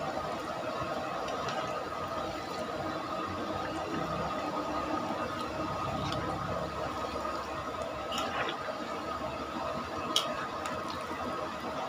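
Chicken pieces deep-frying in a large wok of hot oil, a steady bubbling sizzle. A few sharp metal clicks from the wire skimmer against the wok, the loudest about ten seconds in.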